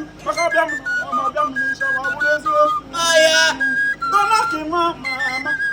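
Music led by an Igbo flute (oja) playing a melody of short held notes and bending phrases, with a louder, shrill phrase about three seconds in.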